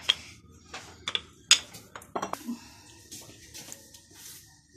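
Wooden rolling pin knocking and rolling on a marble slab as stuffed paratha dough is rolled out: several sharp knocks in the first two seconds or so, then softer, fainter noise.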